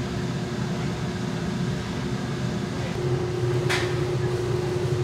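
Steady hum of kitchen machinery with a constant low tone. About three and a half seconds in there is one brief soft rustle, which matches marinated pork being pressed into flour in a steel bowl.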